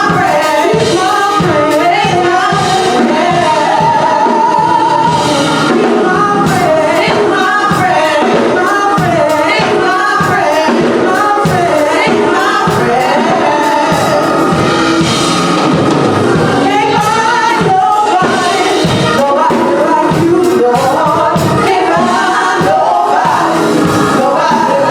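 Gospel song: singers over band accompaniment with a steady beat.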